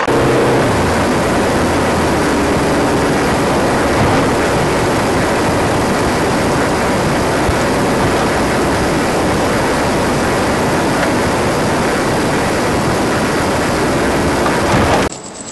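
A loud, steady rushing noise that cuts off suddenly near the end.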